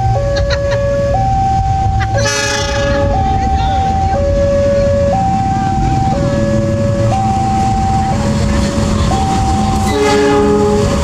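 Level-crossing warning alarm sounding two tones that alternate, each held about a second, over the low rumble of a passing diesel train. A locomotive horn sounds briefly about two seconds in and again for about a second near the end.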